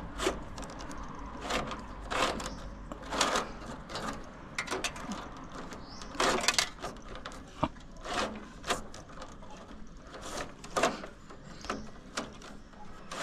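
A bundle of thin black cables rustling, scraping and rubbing against each other and the pole as they are gathered and tied by hand, in irregular short bursts of handling noise.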